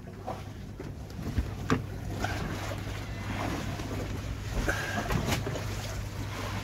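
Wind and water around a sailboat lying at anchor: a steady low rumble of wind with scattered knocks and a couple of short squeaks from the boat.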